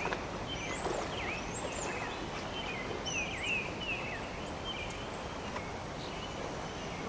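Small birds chirping and singing in many quick notes that slide up and down, strongest in the first four seconds, over a steady rush of running creek water.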